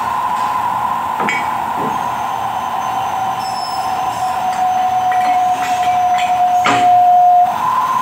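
Milling machine's electric motor running with a steady high-pitched whine. About a second in, a second, lower whine joins it, sinks slightly in pitch and cuts off suddenly near the end, with a few short knocks.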